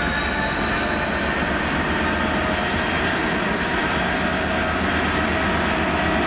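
Class 66 diesel-electric freight locomotive passing with its two-stroke V12 diesel engine running, a steady high whine over the rumble, followed by the continuous rolling rumble of its freight wagons on the rails.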